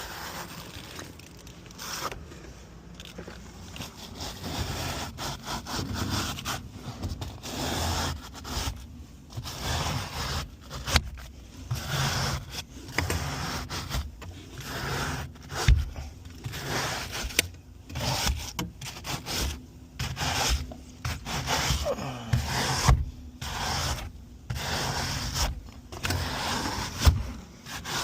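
A brush scrubbing an air-conditioner coil coated in foaming coil cleaner, in repeated rubbing, scraping strokes about a second apart.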